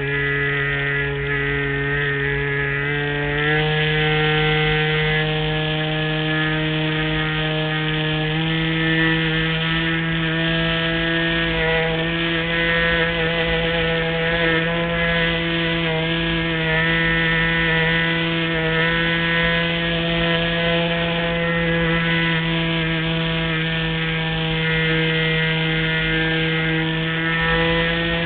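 LazyBee RC model airplane's motor and propeller running steadily in flight, heard close up from the top of the wing. The pitch steps up about three seconds in and rises a little again about eight seconds in.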